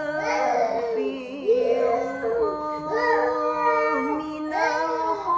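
A young child crying in long, wavering wails without a break.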